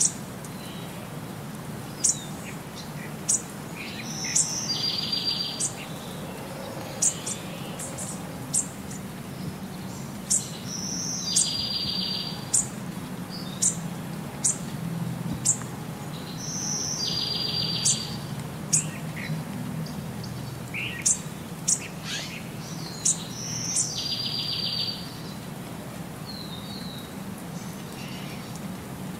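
Birds chirping: a buzzy trill comes back about every six seconds, with short, sharp high chirps in between, over a faint low hum.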